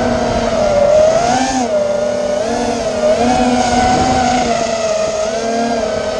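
Racing-drone motors whining, the pitch wavering up and down with throttle changes, with a lower tone cutting in and out.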